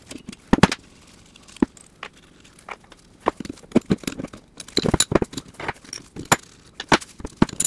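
Socket ratchet clicking as bolts on a steel belt-grinder platen arm are loosened, with metal knocks and clinks as the steel arm and its parts are handled. There is one louder knock about half a second in, and clusters of clicks in the second half.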